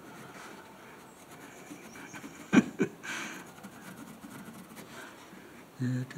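Pencil scratching along a rough chestnut board while a cut line is marked, with two short sharp sounds about two and a half seconds in. A voice starts near the end.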